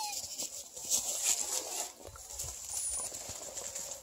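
Six-week-old beagle puppies scuffling and tugging a plush toy in dry grass and leaves, with a short high falling whine at the very start.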